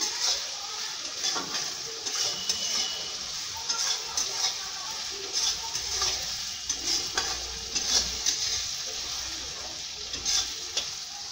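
Chopped onions frying in oil in a kadai, sizzling steadily, while a spatula stirs them with scattered clicks and scrapes against the pan.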